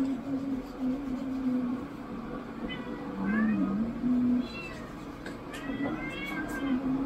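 Cats meowing over and over at feeding time: long, low, drawn-out meows with shorter, higher meows in between.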